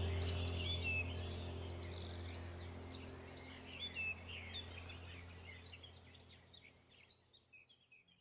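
Small forest birds chirping and twittering in quick, overlapping calls over a low steady hum. Both fade out gradually towards the end.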